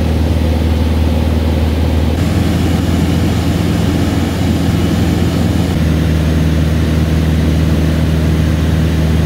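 Engine and propeller of a single-engine light aircraft running steadily in flight, heard from inside the cockpit. The steady pitch steps abruptly to a slightly different tone twice, about two seconds and six seconds in.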